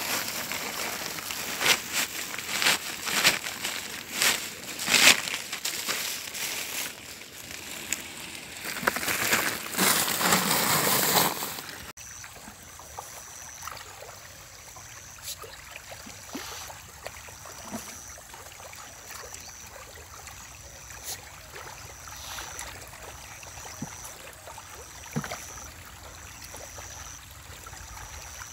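Woven plastic feed sack rustling and crinkling with many sharp clicks while dry pellet feed is handled. After a cut about twelve seconds in, quieter water sounds from the fish pond, with scattered light splashes and clicks as shing catfish take the feed, and a faint high chirp repeating about once a second.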